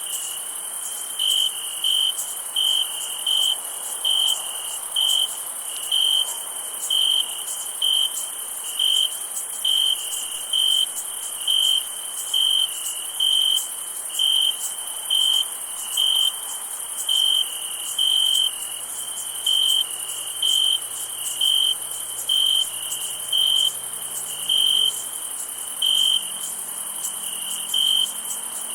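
Crickets chirping at night: a steady high trill with a louder chirp about once a second, over a continuous high-pitched insect chorus.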